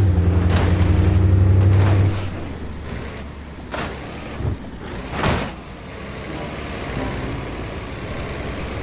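Steady low engine-like hum, loud for about the first two seconds and then quieter, with a few short knocks along the way.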